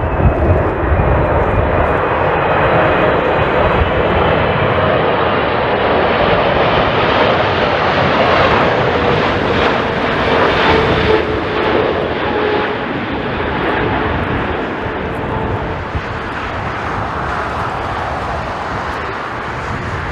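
Jet airliner's engines as it passes on landing, a steady rush with a whining tone that slowly drops in pitch around the middle, then easing off toward the end. Wind buffets the microphone briefly at the start.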